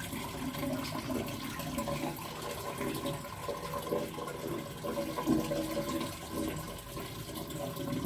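Water from a garden hose running and splashing into a plastic basin of artificial flowers being rinsed.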